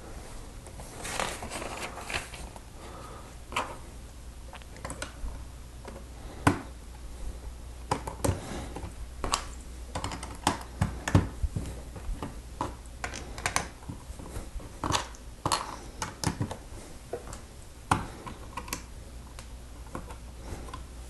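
Plastic LEGO bricks and pieces clicking and tapping as they are handled and pressed together, many irregular sharp clicks, some louder snaps, over a low steady hum.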